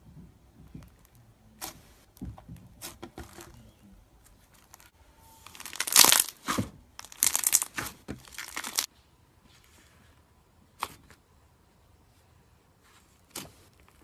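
Slime being worked by hand, giving scattered sharp pops and clicks, with a dense stretch of crackling and tearing sounds in the middle.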